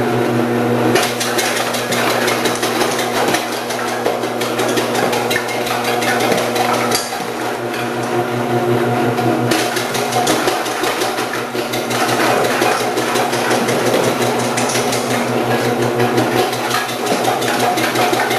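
Electric vegetable cutting machine running with its dicing disc, the motor humming steadily while carrots are fed in and chopped into 8 mm cubes in a dense, rapid clatter of cuts that starts about a second in.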